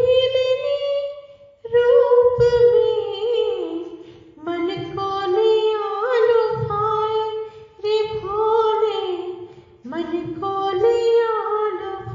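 Woman singing a devotional song to Shiva in long, gliding melodic phrases, with short breaks between phrases every two to three seconds.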